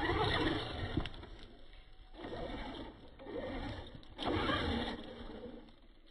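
Axial Wraith RC rock racer's electric motor and drivetrain whining in several short bursts of throttle as it climbs a snowy, muddy bank, getting fainter toward the end.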